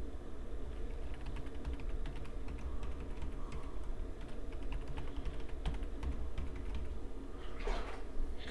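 Typing on a computer keyboard: a long run of quick, irregular key presses entering a password, over a steady low hum. A short hiss comes near the end.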